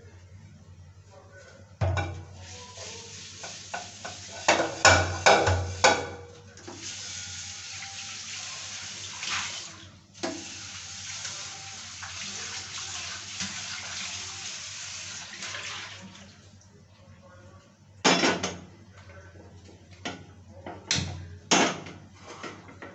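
Kitchen dishes and utensils clattering, then a water tap running for about ten seconds and shutting off, followed by a few more knocks of dishes near the end.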